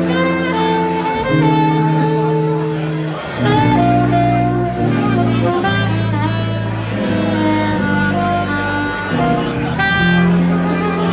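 A small live jazz combo playing a slow tune: alto saxophone carrying the melody in long held notes, over electric guitar, electric bass and a drum kit.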